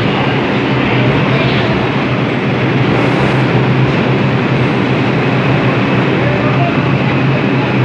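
New York City Subway IRT trains moving along the platform: a steady, loud rumble of steel wheels on the track, with a faint rising whine near the end.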